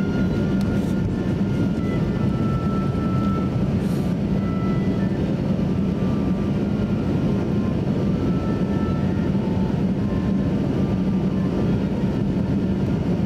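Cabin noise of a Boeing 737-800 taxiing, its CFM56 turbofans at idle thrust: a steady rumble with a hum.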